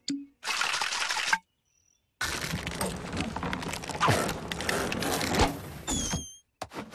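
Cartoon sound effects: a short burst of rattling noise, a pause, then a long busy clatter with sharp knocks, ending in a few short rising whistles.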